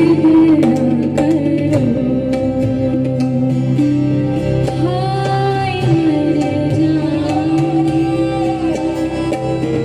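Live ghazal performance: a woman singing in gliding, held phrases, accompanied by tabla strokes, acoustic guitar, keyboard and a bowed string instrument.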